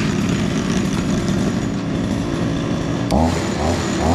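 Petrol brush cutter engine running steadily after a test pull-start, with a click about three seconds in.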